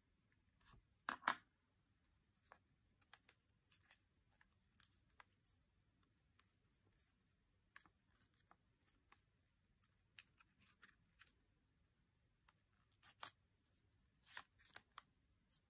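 Faint handling of a small sheet of origami paper as it is folded and creased by hand: scattered short crinkles and clicks, with a louder pair about a second in and a small cluster near the end.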